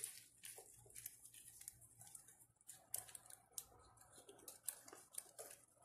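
Faint small clicks and leather handling: the metal clip of a leather handbag's wrist strap being fitted onto the ring at the bag's side.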